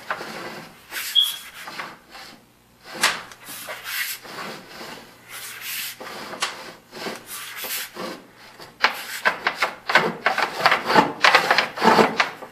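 Irregular scraping and rubbing of a sewer inspection camera's push cable being fed through the pipe. The strokes come faster and louder over the last few seconds.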